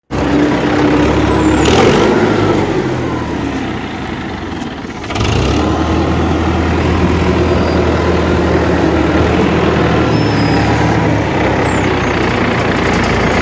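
Forklift engine running steadily; it drops off for about a second around four seconds in, then picks up again and runs on at a steady pitch.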